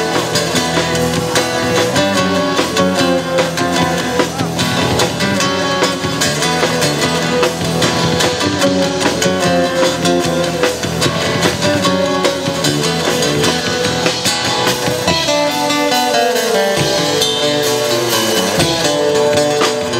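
Acoustic guitar playing an instrumental passage of a song live, with no singing, ending in a run of notes falling in pitch.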